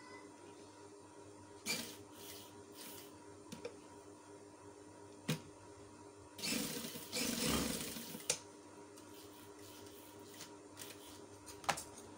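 Domestic sewing machine running a short seam of about two seconds in the middle, stitching a cloth strip onto a kameez neckline. Scattered clicks and knocks from the machine and the fabric being handled come before and after it.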